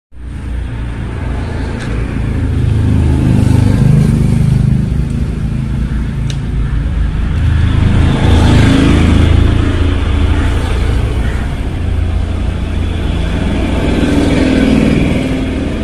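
A motor vehicle's engine running, with a low rumble that swells and fades several times.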